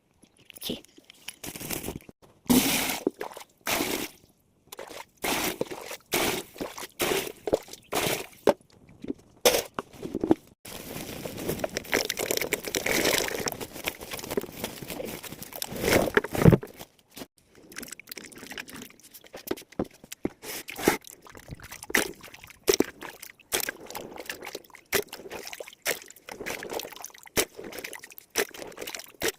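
Fresh potatoes being washed by hand in water: irregular knocks and scrubbing as the potatoes are handled. Water pours steadily for several seconds midway.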